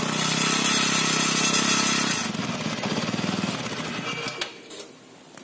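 TVS Ntorq scooter's single-cylinder engine running with a rattling from the silencer, loudest in the first two seconds, then dying away about four and a half seconds in. The rattle comes from the silencer and its guard screws working loose.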